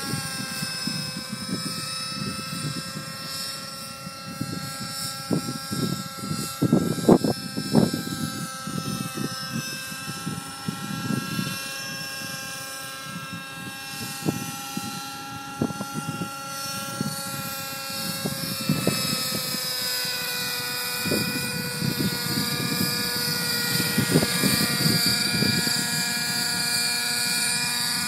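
Helicopter hovering and manoeuvring: a steady, high-pitched rotor and drive whine that shifts slightly in pitch as it works, with wind gusting on the microphone.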